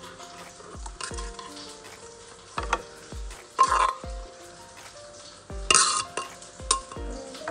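Metal spoon scraping and scooping wet shredded kohlrabi salad out of a mortar, with several sharp scrapes and clinks; the loudest come about halfway through and again near the end. Soft background music plays underneath.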